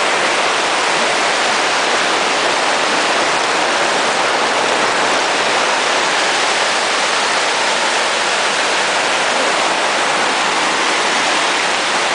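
Whitewater rapids rushing and churning around a raft: a loud, steady noise of foaming water.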